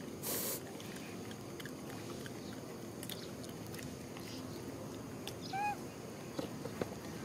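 Macaques foraging at close range: faint scattered clicks and taps over a low, steady background, a short rustle just after the start, and one brief squeaky call about five and a half seconds in.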